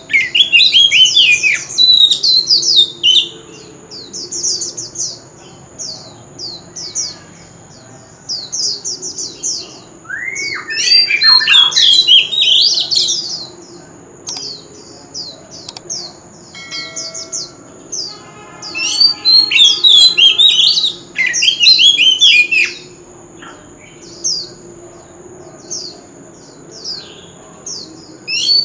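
Oriental magpie-robin singing: bursts of rapid, varied whistles and chirps, loudest about a third of the way in and again about two-thirds through, with quieter gaps between. A thin steady high tone runs beneath the song.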